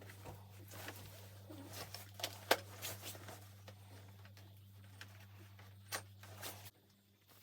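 Scattered light clicks and rustles of things being handled, over a steady low hum that cuts off abruptly near the end.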